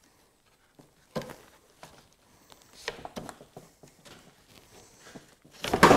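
Handling noises from working on a Minn Kota trolling motor shaft: scattered light clicks and knocks, with a louder clatter near the end.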